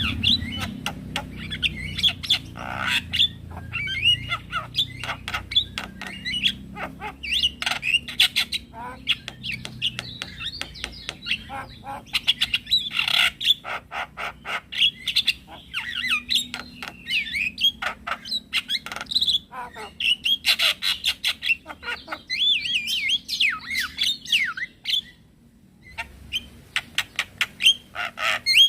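Male Javan myna singing: a rapid, busy stream of clicks, chirps and warbled whistles, with a brief pause near the end.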